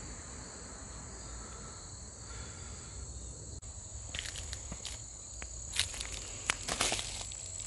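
Insects trilling steadily at a high pitch, with footsteps crunching and rustling over dry leaves and mulch from about four seconds in.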